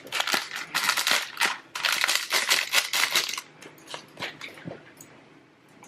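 Dry hamster bedding substrate being mixed up, crunchy rustling in quick dense bursts for about three and a half seconds, then a few scattered light clicks.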